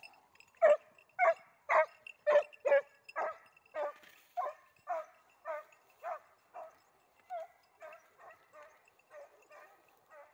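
Hunting dog barking in a steady run of about two barks a second, loud at first and fading as the dog moves away: a hound giving tongue while trailing a hare.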